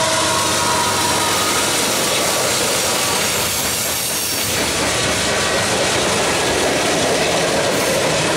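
Loud, steady noise of a freight train passing close by. First comes the trailing GE AC44CW diesel-electric locomotive, with a steady drone that fades within the first second or so. Then the steel wheels of the freight cars roll over the rails.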